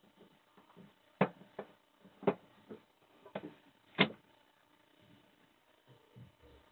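About six sharp knocks in the first four seconds, the three loudest about a second in, a second later and at four seconds: a camper van's sink waste hose being pulled down through its hole in the floor from underneath.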